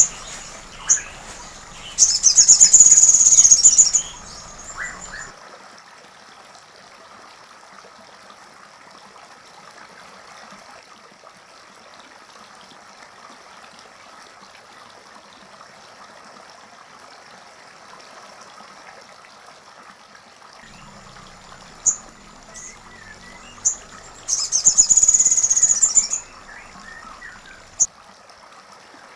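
Sogon songbird singing two loud, rapid, high-pitched song bouts, one about two seconds in and one about twenty-four seconds in, with a few single sharp chirps before and after the second, all over a steady trickle of water. The song is the platuk sampit material the bird has learned.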